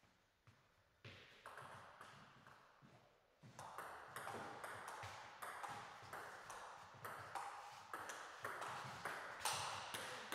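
Table tennis rally: a celluloid-type ball clicking off the table and the players' bats in a quick, steady back-and-forth with a little hall echo. A few scattered taps come first, and the rally starts about a third of the way in.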